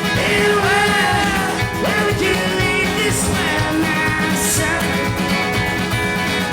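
Live rock band playing a song, with guitar, a steady drum beat and singing.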